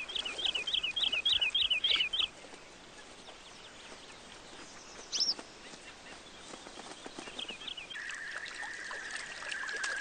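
Whooper swan cygnet peeping: a quick run of about nine high, falling peeps, roughly four a second, then a single higher call and a few more peeps later. A steady high tone comes in near the end.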